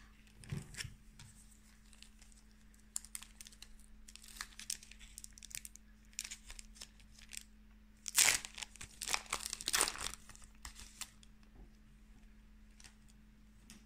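Foil wrapper of a Pokémon card booster pack being torn open and crinkled: scattered rustles, with a louder run of crinkling about eight to ten seconds in.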